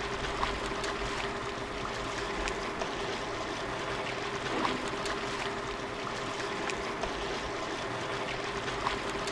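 Steady rushing outdoor background noise with a faint, even hum under it. A few light clinks come through it, from a metal spoon against the steel spice cups and tray.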